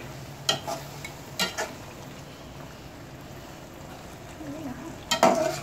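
Metal spatula stirring chicken masala in a metal karahi. It scrapes and clinks against the pan a few times over a steady low frying sizzle.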